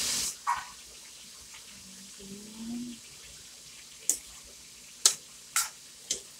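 Metal ladle scraping and knocking against a steel wok as cabbage, cauliflower and carrots are stir-fried: a loud hiss that cuts off abruptly in the first moment, then a few separate sharp clanks, four of them in the last two and a half seconds.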